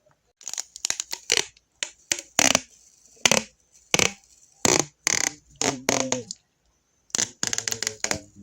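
Adhesive tape being pulled off and ripped in a string of short, sharp rips at an uneven pace, with a brief silent pause about six and a half seconds in.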